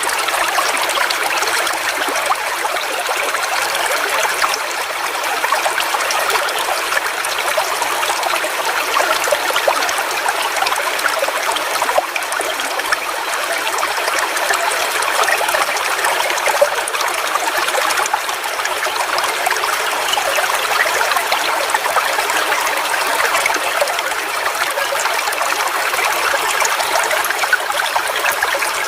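Forest waterfall: falling water splashing in a steady, even rush, bright and fizzing, with little deep rumble and no change throughout.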